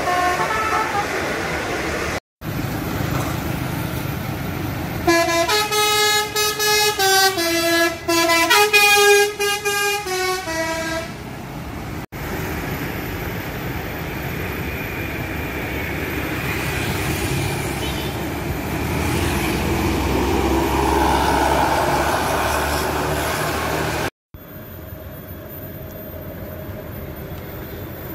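A bus's multi-tone 'telolet' air horn playing a quick tune of many short notes that step up and down in pitch for about six seconds. Around it, bus engines and passing traffic running steadily.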